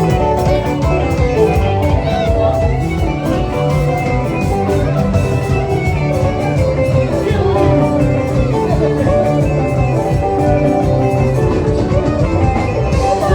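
Live band playing dance music with a steady beat.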